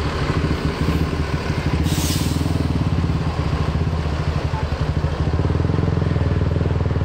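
Mercedes-Benz diesel bus engine idling steadily as it warms up, a low rumble with fast, even pulses. A short hiss comes about two seconds in.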